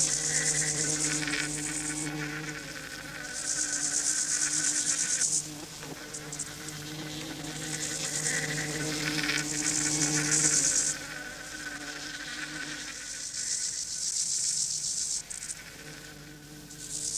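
Mechanical alarm clock bell ringing in rattling bursts of two to three seconds, four times, about every four to five seconds, over a steady low hum.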